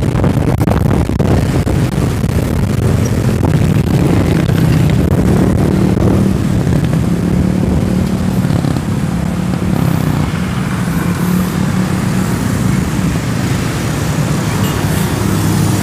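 Road traffic: motorcycle engines running steadily close by, with cars passing and a low rumble of wind on the microphone.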